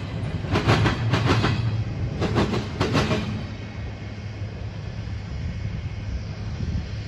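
The last empty cars of a CSX intermodal freight train roll past, their wheels clacking in quick groups. About three seconds in the clacking stops and a low rumble fades as the train moves away.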